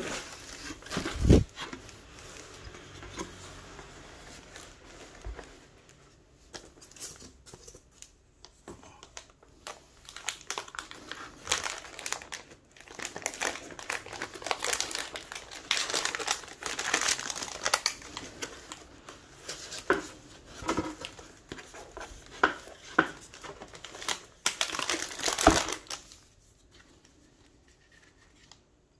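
Packaging being unwrapped and handled in an unboxing: crinkling and rustling wrapping with scattered clicks, busiest in the second half, and two sharper knocks, one about a second in and one near the end.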